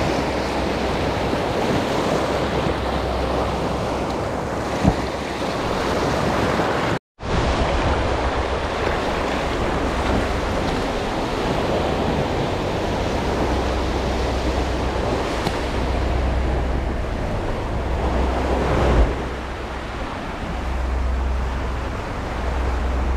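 Waves washing in, with wind buffeting the microphone in a steady rushing noise and low rumble. The sound cuts out completely for a moment about seven seconds in.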